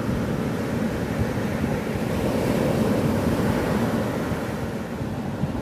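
Ocean surf breaking and washing up a sandy beach: a steady rushing that swells about two seconds in and eases off near the end.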